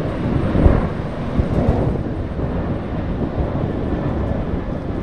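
Airliner engines running, a loud steady rumble with a brief swell under a second in.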